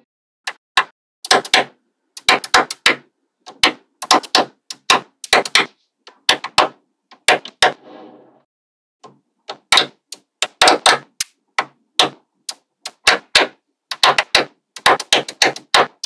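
Small metal magnetic balls clicking and snapping together as strips of them are pressed onto a slab of the same balls, in quick clusters of sharp clicks with short pauses between and a longer pause about halfway.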